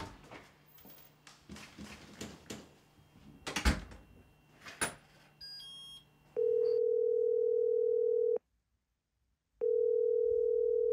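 Footsteps and a door shutting with a thud, then a few short phone beeps and a call's ringback tone: two steady tones about two seconds long with a pause between, the sign that the other phone is ringing and has not been answered.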